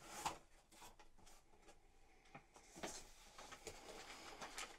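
Faint handling of a cardboard box: a sharp scrape as the lid is lifted about a quarter second in, then scattered short scrapes and rustles as the packing inside is handled.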